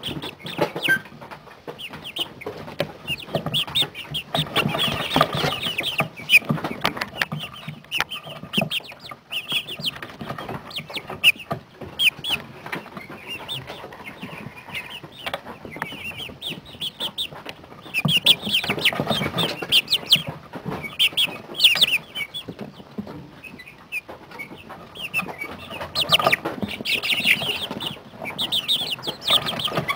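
A brooder full of 40-day-old chicks peeping and clucking, many short high calls overlapping, in busier and quieter stretches.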